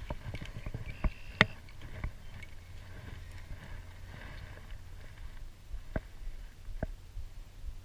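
Handling noise in a small fishing boat: scattered sharp knocks and clicks, the strongest about a second and a half in, over a low steady rumble.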